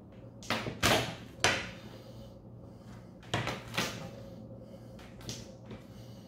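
Garlic cloves being crushed under the flat of a wide chef's knife on a cutting board: a few dull thumps with a crunch, three in quick succession and then two more a couple of seconds later.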